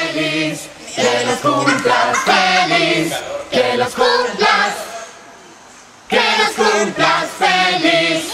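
A group of people singing together without instruments, breaking off briefly about two-thirds of the way through before starting again.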